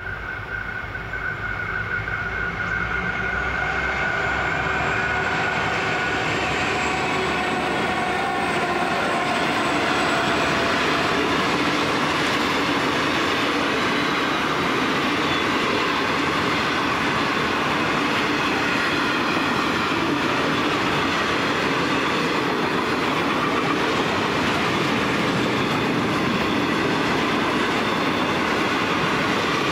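Grain hopper wagons of a freight train rushing past at speed: a continuous roar of steel wheels on rail that builds over the first few seconds and then holds steady. A low diesel rumble fades in the first few seconds, and a faint thin wheel squeal rises between about four and nine seconds in.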